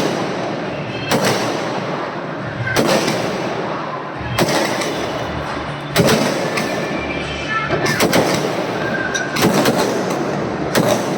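Aerial fireworks (sky shots) going off one after another, a sharp bang about every second and a half, with crackling and short whistles in between.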